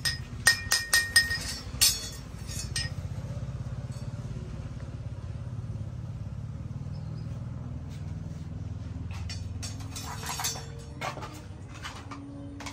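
Steel clinking against a metal motorcycle brake disc: about six sharp ringing clinks in the first two seconds, then a few more clinks about ten seconds in as the disc is moved, over a steady low hum.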